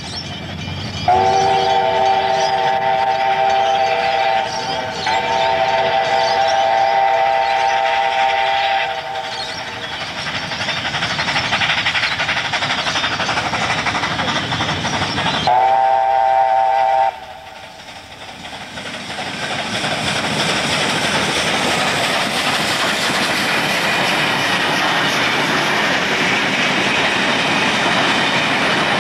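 Steam locomotive 3801, a NSWGR 38 class 4-6-2 Pacific, sounding its whistle, a chord of several notes: two long blasts in the first nine seconds and a short one about sixteen seconds in, over the noise of the approaching train. From about eighteen seconds in, the steady rolling noise of its passenger carriages running past.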